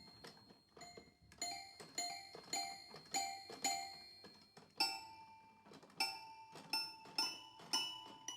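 Background music: a simple melody of short ringing notes, about two a second, with a couple of brief pauses.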